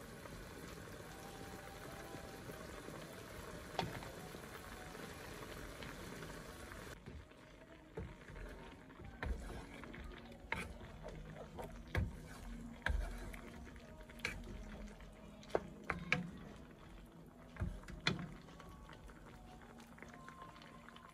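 Snake gourd curry in coconut milk simmering in a frying pan, a steady bubbling hiss. About seven seconds in the hiss drops away abruptly. After that a wooden spoon stirs the curry, knocking and scraping against the pan about once a second.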